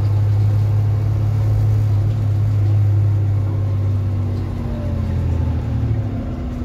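Double-decker bus's diesel engine and drivetrain heard from the upper deck while under way: a loud, steady low drone that loosens and eases off about two-thirds of the way through.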